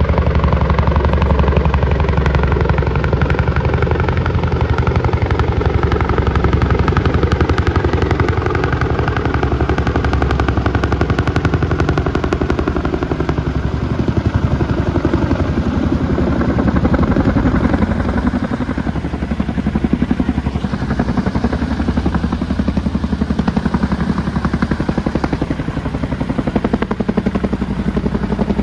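CH-47 Chinook tandem-rotor helicopter hovering close overhead with an underslung load, its rotors giving a loud, steady, rapid chop over a low engine drone.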